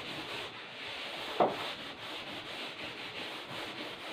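A chalkboard duster wiping chalk off a blackboard in repeated back-and-forth scrubbing strokes, with one sharper knock about a second and a half in.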